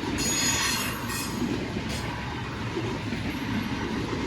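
Freight train rolling by with a steady rumble of wheels on rail, and a brief high squeal of steel wheels in the first second or so.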